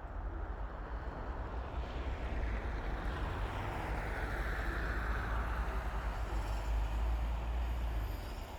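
A vehicle passing along a snowy road, its tyre noise swelling to a peak about halfway through and then fading. Under it runs a steady low rumble of wind on the microphone.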